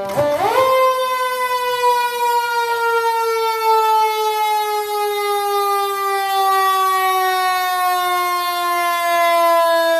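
Bumper-mounted mechanical siren on a Seagrave fire engine, tested just after repair of a blown clutch and spacer. It winds up quickly to a loud wail within the first second, then its pitch falls slowly and steadily as the rotor coasts down.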